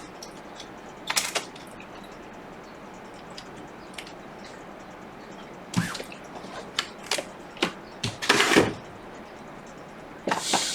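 Scattered clicks, taps and rustling as small parts and tools are handled on a repair bench, with a longer rustle about eight seconds in and another near the end, over a steady low hiss.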